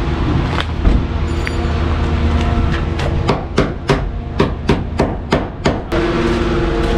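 A run of about ten hammer blows, roughly three a second, starting about three seconds in, over a steady low hum.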